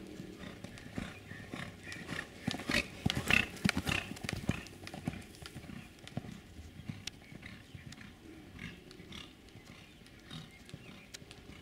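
Hoofbeats of a ridden horse on a sand arena: a quick run of strikes, loudest between about two and five seconds in, then softer footfalls.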